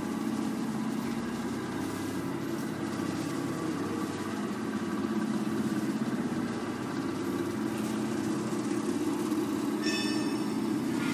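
Electric-motor-driven e-waste shredder running steadily with a low mechanical drone. A short high ringing tone joins it about ten seconds in.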